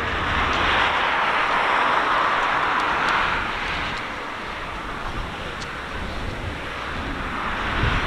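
Distant jet engine noise from a Boeing 737-800's CFM56 engines on the runway for takeoff: a steady rush that swells over the first few seconds, eases off around the middle and builds again near the end.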